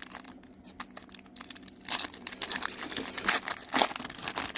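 Crinkling of a foil Pokémon trading-card booster pack wrapper being handled, growing louder from about two seconds in.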